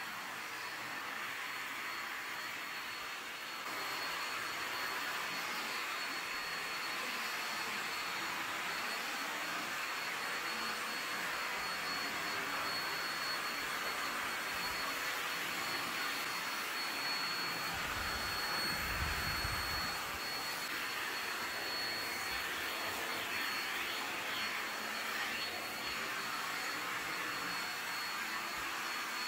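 Hoover commercial backpack vacuum running steadily, its motor giving a continuous rushing hum with a thin high whine; it gets louder about four seconds in, and a brief low rumble comes through near the middle.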